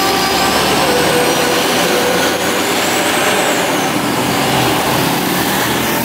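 Mercedes-Benz coach's diesel engine running as the bus drives off, with a thin high whistle that rises and then falls midway.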